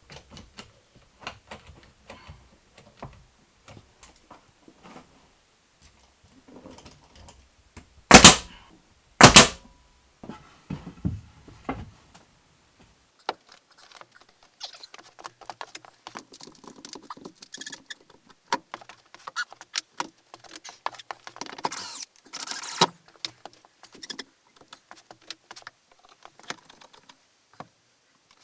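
Scattered clicks, knocks and rattling of hands-on carpentry work, tools and pine boards being handled, with two loud short bursts about eight and nine seconds in.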